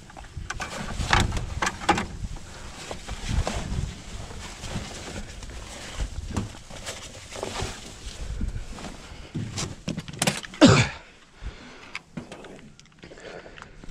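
Handling noise as a channel catfish is wrestled into a cloth weigh bag on a boat deck: rustling, scraping and knocks, with gusty wind rumble on the microphone. One louder, sharp sound with a falling pitch comes about ten seconds in.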